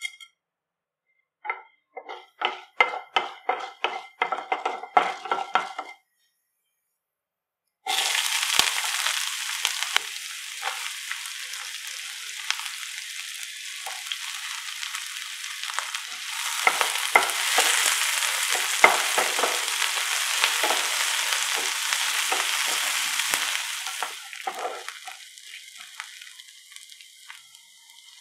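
Onion, dry red chillies and garlic frying in hot oil in a nonstick pan, sizzling and crackling while a spatula stirs. The sizzle starts suddenly about eight seconds in, grows louder about halfway through, and dies down near the end. Before it comes a short run of musical notes, then a brief silence.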